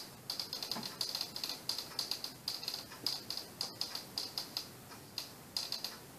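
Dry-erase marker writing on a whiteboard: a quick run of short strokes, thinning out and stopping shortly before the end.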